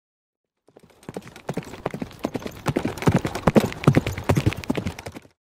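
Sound effect of galloping hoofbeats, a fast, irregular clatter of knocks that swells to its loudest about three and a half seconds in and then fades out.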